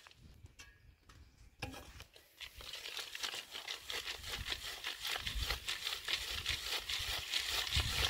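Dense crackling and crunching of dry material being handled or broken, starting about a second and a half in and growing louder.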